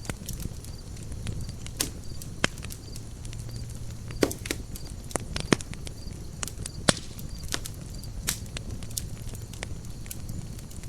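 Campfire of burning wood crackling, with irregular sharp pops and snaps over a low, steady rush of flame.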